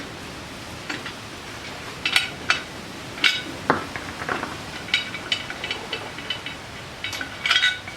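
Metal parts and tools clinking and knocking together while being handled during motorcycle exhaust work: a string of sharp, short clinks with a brief ring, coming in small clusters, over a steady hiss.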